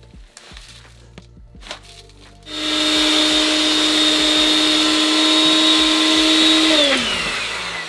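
Countertop blender grinding oats: the motor starts about two and a half seconds in and runs loudly at a steady pitch for about four seconds. It is then switched off and winds down with a falling pitch.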